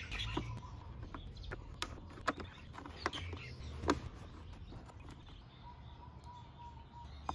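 Small plastic parts being handled: a few sharp clicks and taps over a faint low hum, with a faint thin whistle twice.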